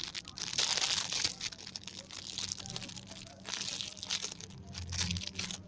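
Crinkling and rustling as a homemade squishy is squeezed and handled, in uneven bursts, the strongest near the start and another about four seconds in.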